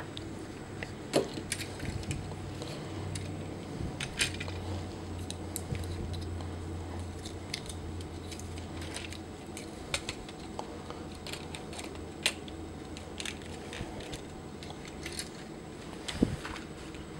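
Plastic clicks, taps and rattles of a Warbotron Whirlwind transforming robot figure's parts being folded, swivelled and pegged into place by hand, in irregular bursts with a few sharper snaps.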